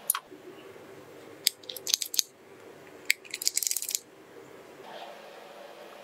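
A wooden rolling pin clicking and scraping against a nonstick pan's round mould as it presses and circles batter: a few sharp clicks, then a quick crackly run of them a little past the halfway point, over a faint steady hum.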